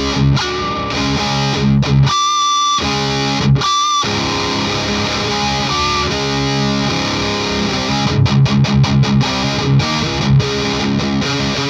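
Electric guitar played through a Parks Custom Pedals Dagon OD, a Klon-style overdrive, into a tube amp, giving a driven, distorted rock tone. Sustained chords are broken about two seconds in by a high ringing note, and about eight seconds in comes a run of quick palm-muted chugs.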